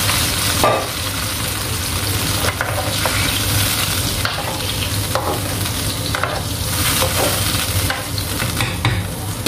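A spoon stirring chicken pieces in broth in a metal pan, with irregular light scrapes and clinks against the pan over a steady hiss from the hot pan.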